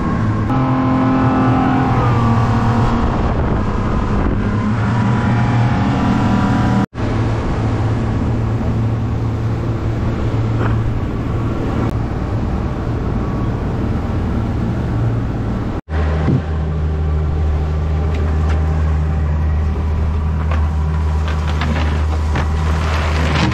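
Yamaha 250 outboard motor running steadily under way, over the rush of water past the hull. The sound drops out abruptly twice, and the engine's pitch is a little different each time it comes back.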